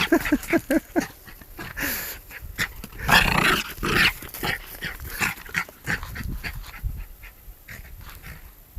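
A playful dog vocalising: a quick run of short growls in the first second, then scattered rustling noises.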